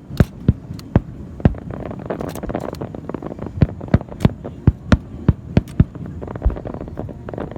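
Fireworks display: aerial shells bursting in quick, irregular succession, well over a dozen sharp bangs over a steady low rumble.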